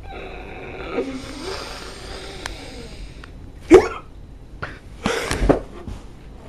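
A boy making deliberately gross throat noises: a drawn-out croaking sound for about three seconds, then a loud harsh cough-like burst, and another a second later.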